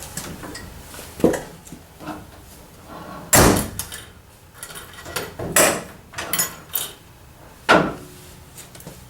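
Hands working the ridged retaining clip onto the trunk lock cylinder inside the trunk lid: a scattered series of metal knocks and clatters against the sheet metal, the loudest about three and a half seconds in.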